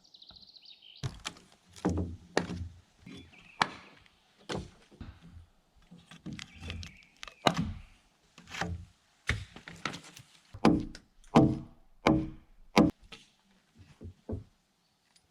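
Hand tool chopping into log timber: a run of sharp, uneven blows on wood, roughly one a second, some ringing briefly.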